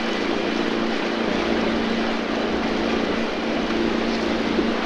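A small canal boat's motor running at a steady cruise, a constant low hum over an even hiss.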